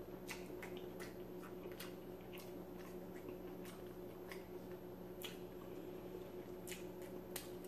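Faint chewing and wet mouth clicks from a person eating saucy rotisserie chicken, a soft click every half second or so, over a steady low hum.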